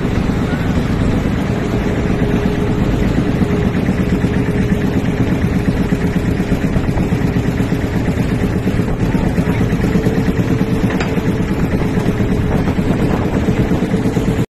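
Small boat engine running steadily at a constant speed, a low rumble with a steady hum over it, as the motorized boat moves through the water.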